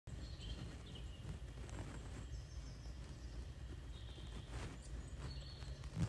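Faint bird chirps from a forest nature video played through a laptop's speakers, over a steady low hum.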